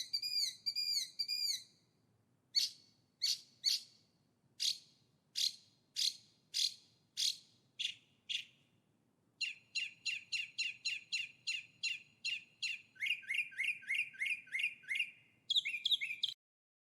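Songbird singing loud, clear phrases of repeated high notes: a quick run of chirps, then a slower series of about nine sharp down-slurred notes, then a fast run of about six notes a second ending in a short buzzy flourish. The sound cuts off abruptly near the end.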